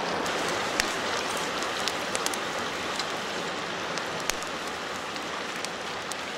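Steady rushing of a mountain river, with scattered faint ticks over it.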